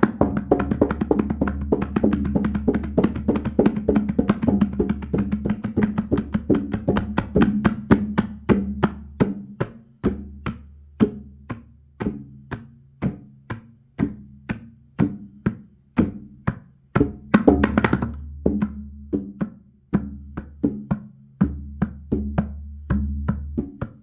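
Tabla being played: a fast, dense run of strokes at first, then slower strokes about two to three a second with a quick flurry a little past the middle. Under the strokes the bass drum's low ring swells and fades, and the treble drum's tuned ring holds one pitch.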